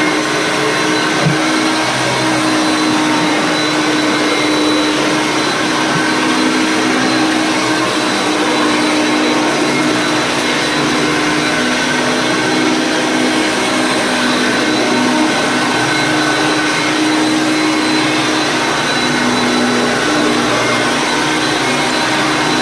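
Vintage Hoover Concept 1 upright vacuum cleaner running on carpet with its self-propelled drive engaged: a steady motor hum and whine that holds level throughout.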